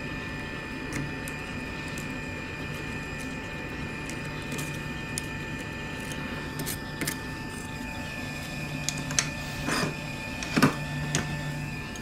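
Steady whirring hum of a hot air rework station's blower, with sharp clicks and scrapes of a metal blade picking at broken iPhone 12 back glass, the clicks coming more often and louder in the second half.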